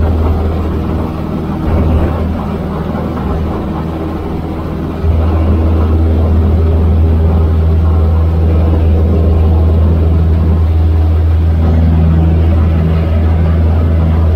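Cessna 152's four-cylinder Lycoming engine and propeller running with a steady low drone. About five seconds in the sound steps up suddenly to a louder, steady level: the throttle opened for the takeoff run after lining up on the runway.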